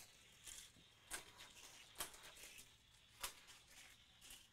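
A Hot Wheels Speedbox die-cast car runs along plastic track, faint, with a few sharp clicks about a second apart.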